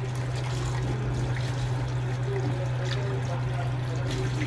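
Tap water running onto a plate in a stainless-steel sink as the plate is washed by hand, with a steady low hum underneath.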